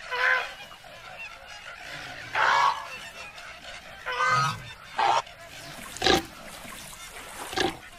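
Flamingo honking calls in a cartoon, about six short nasal honks spaced roughly a second apart.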